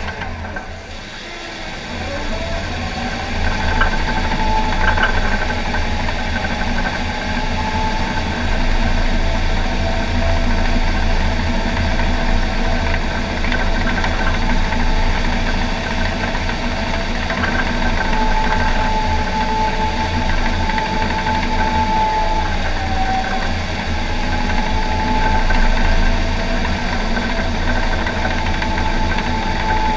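John Deere 750K crawler dozer's diesel engine running under load, heard from inside the cab, with the whine of its hydrostatic drive wavering in pitch. The engine sags briefly at first and picks up again about three seconds in, with occasional clanks from the steel tracks.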